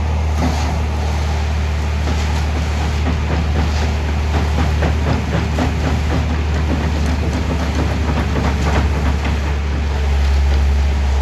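Self-loading concrete mixer's diesel engine running steadily, with a fast, irregular metallic clatter over the engine note, getting a little louder near the end.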